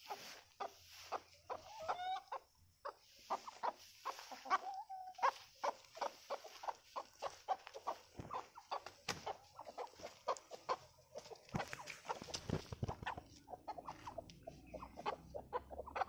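Flock of chickens clucking continuously, many short clucks overlapping from several birds. There is a longer, rising drawn-out call about two seconds in and another held call a little after four seconds.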